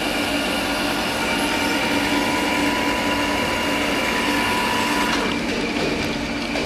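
Metal lathe cutting a steel drill-bit blank under flowing coolant: a steady machine drone with a high metallic whine, its tone shifting slightly about five seconds in.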